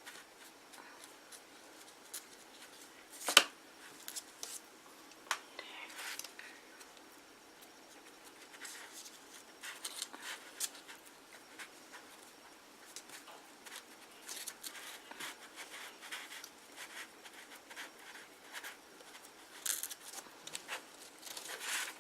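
Small clicks, snips and rustles of hands working craft materials (cotton, string, paper and glue), with one sharp click about three seconds in.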